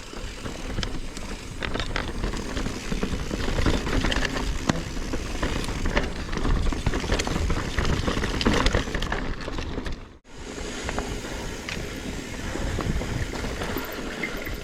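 Mountain bike being ridden on a dirt singletrack trail: tyres rolling over dirt and rocks with the frame and drivetrain rattling in scattered clicks and knocks over a low rumble. The sound cuts out for an instant about ten seconds in.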